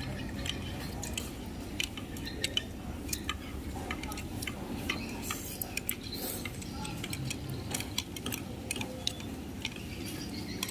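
Several people eating with chopsticks and spoons: scattered light clicks and clinks of utensils against plates and bowls, at irregular intervals, over a low steady background hum.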